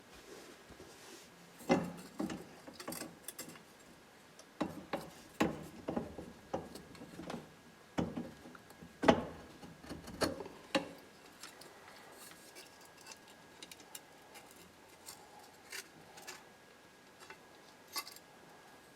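Small metal steering-column parts clinking and knocking as they are handled and taken apart by hand: scattered sharp clicks, busiest in the first half and sparser near the end.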